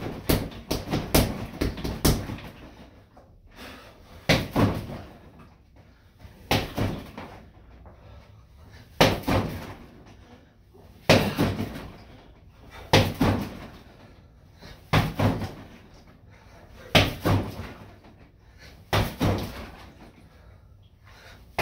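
Punches landing on a freestanding BOB striking dummy (body-opponent bag): a fast flurry of hits in the first two seconds, then short combinations of two or three hits about every two seconds.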